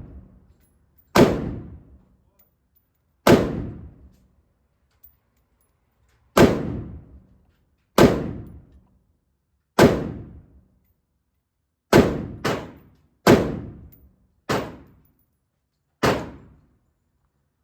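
Gunshots from a handgun at a firing range, about ten shots fired one at a time at uneven intervals, with a quick pair around the middle; each crack rings and echoes off for about a second.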